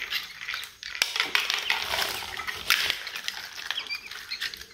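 Hands rummaging among newly hatched Brahma chicks in a plastic crate, with dry eggshells crackling and rustling as the empty shells are picked out. A few faint chick peeps are heard in the second half.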